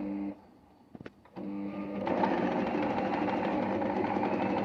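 Singer electric sewing machine stitching. It runs for a moment, stops, gives a couple of sharp clicks, then starts again and runs steadily, louder from about two seconds in.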